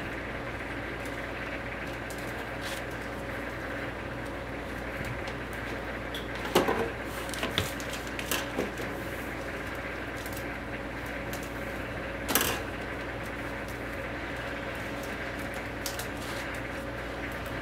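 Hand overwrapping of plastic DVD cases on a DeltaWrap 200 machine: short plastic clicks and knocks as cases are handled and set down and the sealing arm is worked, over a steady machine and room hum. The loudest knocks come as a short cluster about a third of the way through and as a single sharp knock about two thirds through.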